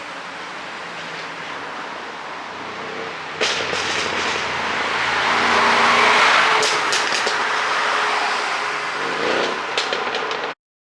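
Mercedes-Benz CLS 63 AMG's twin-turbo V8 driving on the road. About three and a half seconds in it suddenly gets louder under acceleration, and the exhaust crackles and pops in several short clusters, the sign of an ECU tune set up to make overrun pops. The sound cuts off abruptly near the end.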